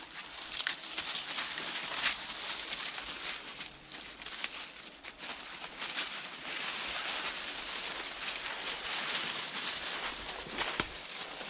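Footsteps pushing through undergrowth, with a steady rustling of leaves and brush and occasional sharp cracks.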